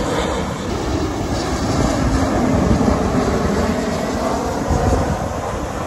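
Jet airliner on final approach passing low overhead: a steady rush of engine noise.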